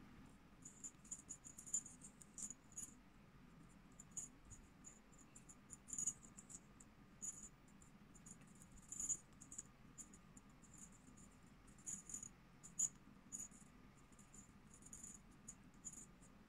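Small jingle bell on a crocheted collar tinkling faintly in short, irregular jingles as the collar is handled and slip-stitched.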